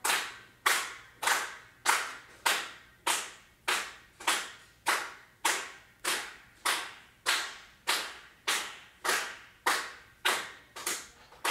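A lone sharp percussive hit, like a clap or snare, repeated about every 0.6 seconds in a song's outro, each with a short echoing tail; the hits come a little closer together near the end.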